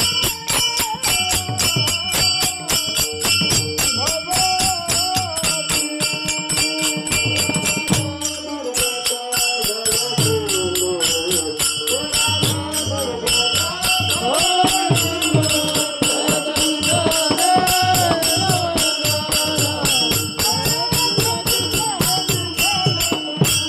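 Devotional singing to Vitthal: a voice carrying a gliding, ornamented melody over a fast, steady beat of jingling metal percussion.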